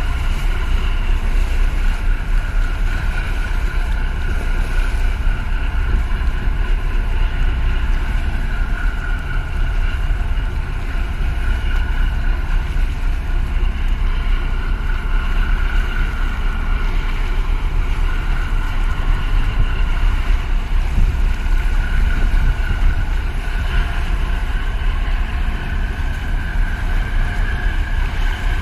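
Steady engine drone of a large container ship and the harbour tug working alongside it as they pass close by: a low rumble with a steady high whine over it. Wind buffets the microphone.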